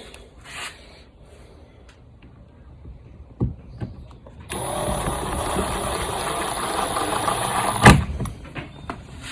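Cordless impact driver running for about three seconds, driving a screw down into a kayak mount base, ending with a sharp knock. A single knock sounds a few seconds before it starts.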